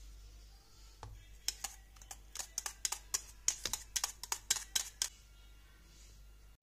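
A spatula clicking and scraping against a metal mixing bowl as thick cake batter is scraped out into a dish: a quick, irregular run of sharp ticks starting about a second in and stopping after about four seconds.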